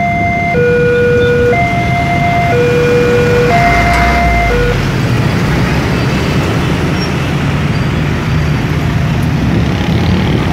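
Indonesian-made electronic level-crossing alarm sounding its two-tone warning, switching tone about once a second, then cutting off about five seconds in as the barrier arms rise and the crossing reopens. Road traffic runs under it and after it, with a truck, cars and motorbikes moving off across the tracks.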